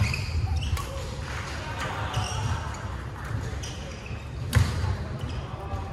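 Badminton play in a large, echoing sports hall: sharp cracks of rackets hitting shuttlecocks at irregular intervals, the loudest at the very start and again near the end, over low thuds of players' feet on the wooden court.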